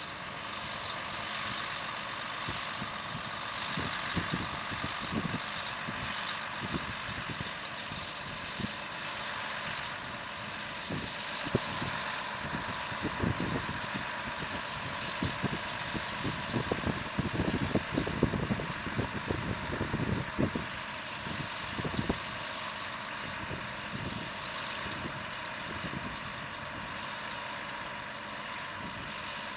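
Diesel engine of a large John Deere four-wheel-drive tractor running steadily under load as it pulls a tile plow through dry, hard soil. Irregular low thuds come and go through the middle.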